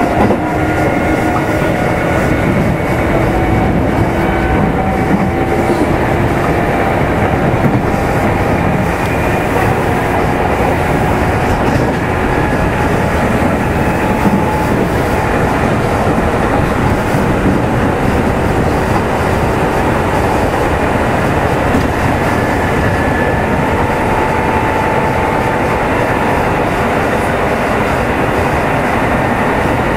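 Kintetsu 2800 series electric train running, heard inside motor car Mo 2852: a steady rumble of wheels on rail under a faint traction-motor and gear whine that slowly drifts in pitch with speed.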